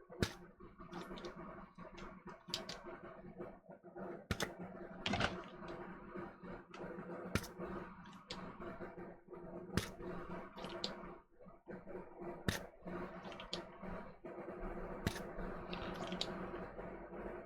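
Spring-loaded solder sucker (desoldering pump) being cocked and fired to suck molten solder from the joystick pads, giving sharp snapping clicks at irregular intervals of one to three seconds. A steady low hum runs underneath.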